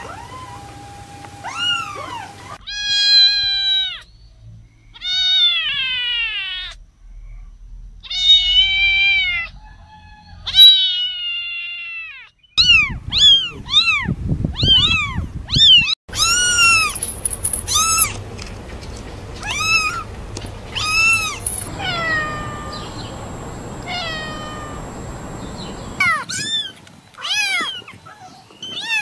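Young kittens mewing over and over: thin, high calls that rise and fall in pitch, some drawn out, others short and quick, coming about two a second in a run through the middle.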